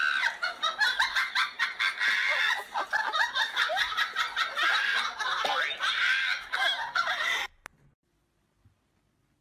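People laughing and giggling, dense and continuous, cutting off abruptly about seven and a half seconds in, then near silence.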